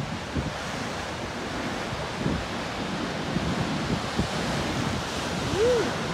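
Ocean surf breaking and washing over rocks, with wind buffeting the microphone. Near the end, a short tone rises and falls over the surf.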